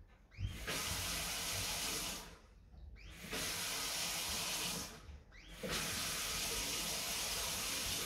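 Water rushing with a hiss, turned on and off three times for about two seconds each, each start rising quickly: water let through a Baxi combi boiler's freshly rebuilt diverter valve to work the air out of it.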